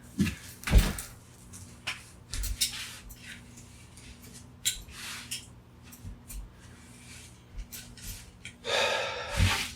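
A tangled charger cable being handled and pulled through: scattered clicks and knocks of the cord and plug, a few low thumps, and a longer rustling scrape near the end.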